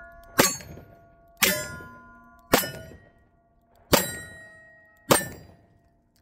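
Five revolver shots about a second apart from a Smith & Wesson 686 .357 Magnum firing warm-loaded lead reloads, each followed by the ringing clang of a hit steel target.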